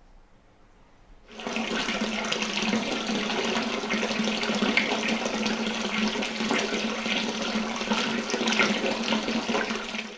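Hot water pouring steadily from a brass tap into a stone hot-spring bath, a continuous splashing rush that starts about a second and a half in and cuts off suddenly at the very end.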